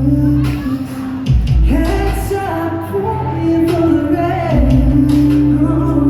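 Live pop band music playing the intro of a song, with a heavy steady bass and singing voices over it, as heard in a concert hall.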